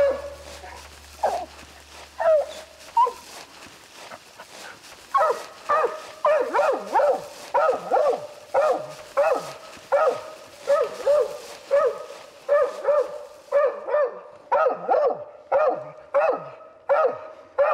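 Coonhound's tree bark: a few scattered barks, then from about five seconds in a steady run of about two barks a second, a bark on nearly every breath. It is the sign that the hound has treed and thinks a raccoon is up the tree.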